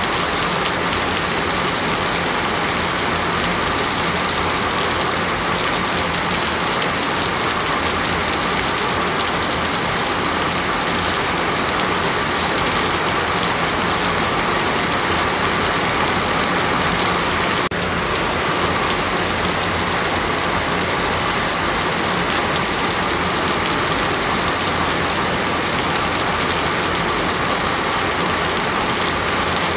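Heavy rain falling steadily, an even hiss, with a momentary dip in level just past the middle.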